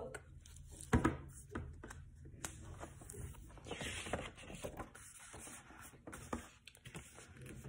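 Pages of a hardcover picture book being opened and turned: paper rustling and swishing, with scattered clicks and light knocks of handling, the sharpest about a second in.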